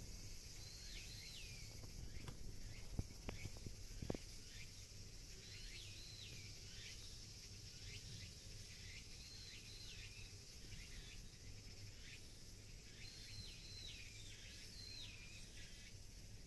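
Faint outdoor summer ambience: a steady high insect hiss, with a bird repeating short falling call notes in small groups every few seconds. A few sharp clicks come in the first four seconds.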